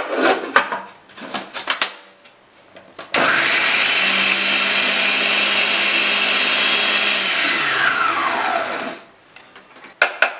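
A Bajaj food processor's motor, pulsed on to chop leafy greens, starts abruptly about three seconds in and runs steadily for about four seconds. It then winds down with a falling whine as the knob is released. A few clicks and knocks come before it starts, and again near the end.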